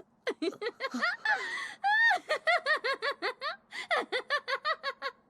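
A woman's manic, high-pitched laughter from an anime voice performance: a rapid string of short 'ha' bursts, about five a second, broken about two seconds in by one long shrill rising laugh. It is Annie Leonhart's laugh in the German dub.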